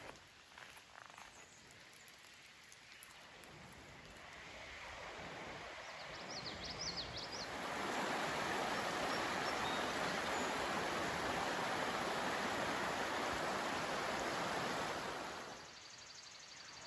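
Steady rushing water noise that swells in over several seconds and cuts off suddenly near the end, with a few brief high chirps about seven seconds in.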